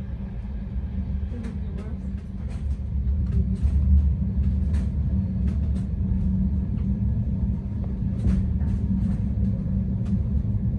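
Passenger train running, heard from inside the carriage: a steady low rumble with a hum and scattered light clicks and rattles.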